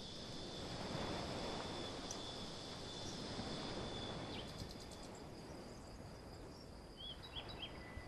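Outdoor nature ambience: steady high insect trills over a soft background hiss, one trill stopping about five seconds in, with a few short chirps near the end.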